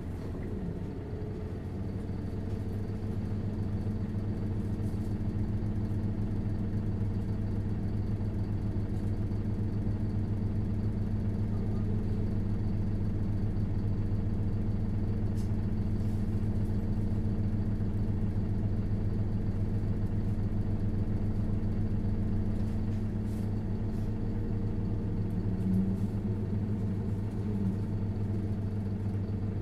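Isuzu Erga LV290N1 bus's four-cylinder diesel engine running while the bus drives, heard from inside the cabin: a steady drone that builds slightly over the first few seconds and then holds at an even pitch.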